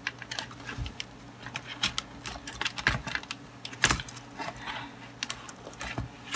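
Irregular plastic clicks and taps from an HP Mini 110 netbook keyboard as fingers press along its keys and work it free of its retaining clips, with a louder click about four seconds in.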